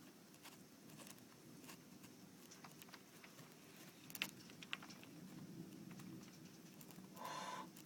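Faint, scattered taps of rain, and possibly the first hailstones, striking the car's roof and windshield, with a brief soft hiss near the end.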